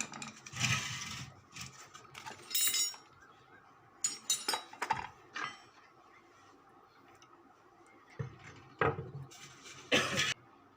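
Metal tools and parts being handled on a workbench, clinking and scraping in several short bouts, the loudest near the start and near the end.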